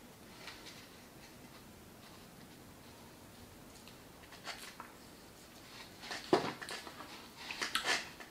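Close-miked eating of a burrito: a few quiet seconds, then about six seconds in a run of wet clicks and mouth smacking as it is bitten into and chewed.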